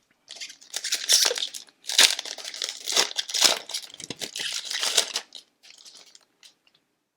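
Foil hockey-card pack wrapper crinkling as it is handled and torn open, a dense irregular crackle that thins out and stops near the end.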